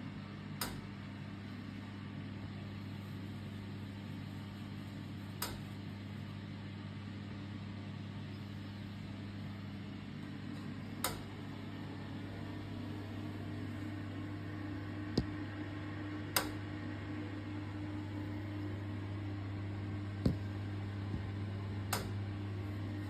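En-suite radiator giving off a steady low hum, a little higher-pitched and louder from about halfway, with sharp ticks about every five to six seconds and a few fainter ticks in between.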